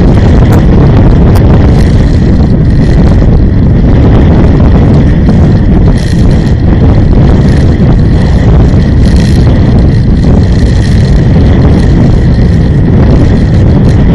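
Loud, steady rumble of a vehicle driving along a road, engine and tyre noise mixed with wind buffeting the microphone.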